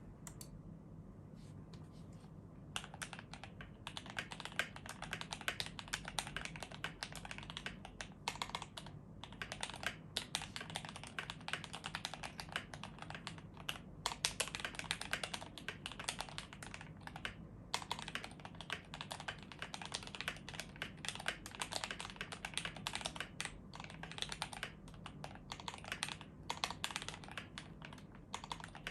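Typing on a CIY68 mechanical keyboard with JWK Black linear switches lubed with 205g0, an aluminium plate, case foam, PE foam and tape mod, and cherry-profile keycaps. It makes fast, continuous keystrokes that start about three seconds in.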